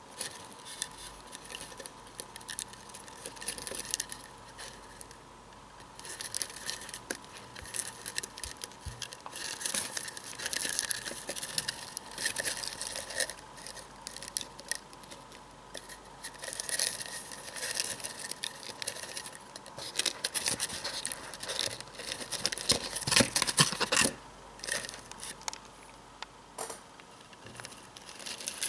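Eastern Hercules beetles' claws and horns scratching and clicking on a foam board and against each other's shells as they grapple, with a pencil prodding them. It comes in irregular bursts, busiest about three-quarters of the way through.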